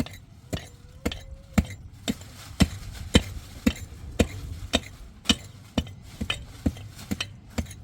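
A steady series of sharp knocks, about two a second, with lighter taps in between.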